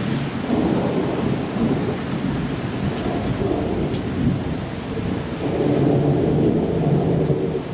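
Thunder rumbling over steady rain, the rumble swelling about half a second in and again near the end.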